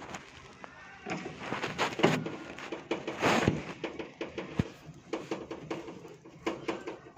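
Hands working the panels of a floor-standing air conditioner's indoor unit, giving irregular knocks, clicks and scraping, loudest about three seconds in, with a sharp knock a little later.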